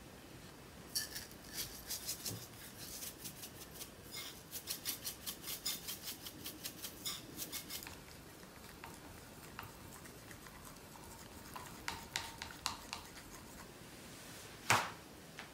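Black pepper being ground over a bowl: a run of quick, even clicks, about four or five a second, lasting several seconds. Then a few scattered light clicks of wooden chopsticks stirring mayonnaise in a glass bowl, and one sharp knock near the end.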